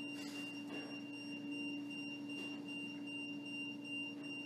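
A steady electronic hum: a low tone with a thin, high-pitched whine above it, both held without change.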